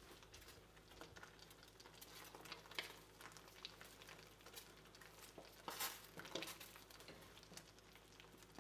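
Faint, irregular ticks and pops of water at a very light simmer in a stainless steel pan of soaking yarn, over a low steady hum.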